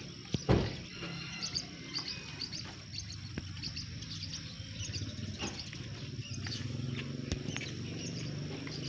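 Small birds chirping in short, scattered calls over a steady low drone. A single sharp knock stands out about half a second in.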